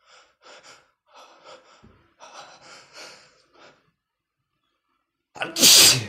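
A man's short, breathy gasps in quick succession, then a pause and one loud sneeze near the end: the hitching breaths of a sneeze building up, then the sneeze itself.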